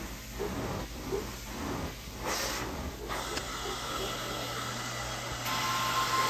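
Hot water extraction wand working a carpet: a steady hiss of spray and vacuum suction that pulses with quick strokes for the first couple of seconds, then runs steadier and gets louder near the end.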